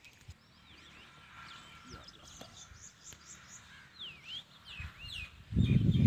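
Small songbirds chirping: a quick run of about six high repeated notes, then several sharp whistled slurs. Near the end a loud low rumble of wind on the microphone sets in.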